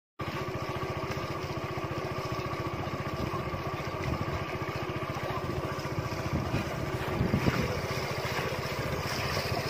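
A steady motor-like drone with a fine, even pulse, and splashing from feet running through shallow water that gets louder near the end.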